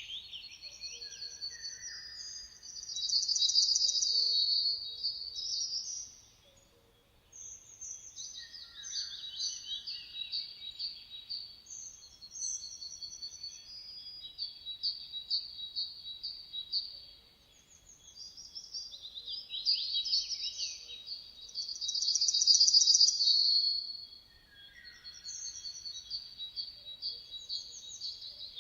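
Songbirds singing in repeated phrases of quick chirping notes and fast trills, with a louder rapid trill about three seconds in and again about twenty-one seconds in.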